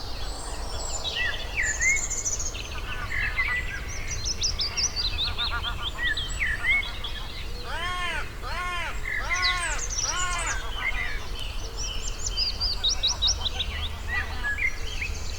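Dawn chorus of several songbirds singing over one another, with many overlapping chirps and whistled phrases and a run of repeated arching calls near the middle, over a steady low rumble.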